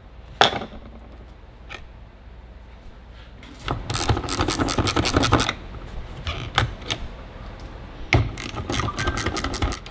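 Clicks, scrapes and rubbing of a Ferrari 348 fuel pump and its metal bracket being worked by hand on a workbench. A few single clicks come first, then a burst of rapid clicking and rubbing about four seconds in and another near the end.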